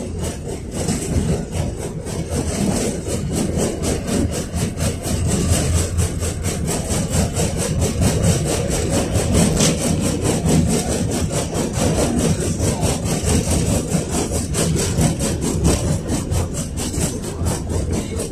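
KTM-5 (71-605A) tram running along the line, heard from inside the car: a steady low rumble of the wheels and running gear, with a fast, even ticking rattle of about five a second over it.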